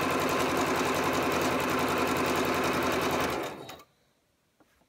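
Electric sewing machine stitching a straight quarter-inch seam through two layered fabric strips at a steady speed, then slowing and stopping about three and a half seconds in. A few faint clicks follow.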